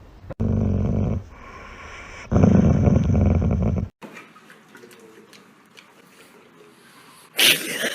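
A pet growling: two low, rough growls, the second longer, each stopping abruptly. A short, loud noisy burst comes near the end.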